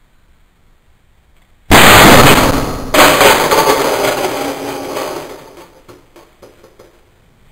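A shot from a homemade compressed-air dart rifle: a sudden loud blast about two seconds in, then a second sharp burst a second later that dies away over several seconds with scattered rattles and clicks.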